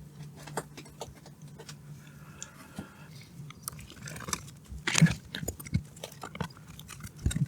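Scattered small clicks, taps and knocks of Xbox console parts being handled and fitted back together, a couple of louder knocks about five seconds in and near the end, over a faint steady low hum.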